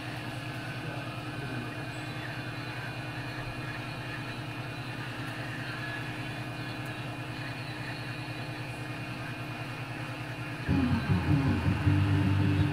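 Hot air rework gun blowing a steady stream of hot air onto a phone motherboard to heat a component. Near the end, louder music comes in over it.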